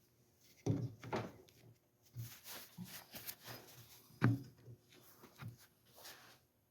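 Short knocks and clicks of hard plastic and metal washing-machine parts being handled as the water pump is fitted onto the motor, with two louder knocks, one near the start and one about four seconds in, and light rattling between.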